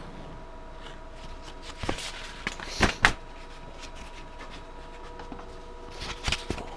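Handling knocks and clacks as a sanding belt is fitted to a belt grinder: a few sharp knocks, the loudest pair about three seconds in, over a faint steady hum.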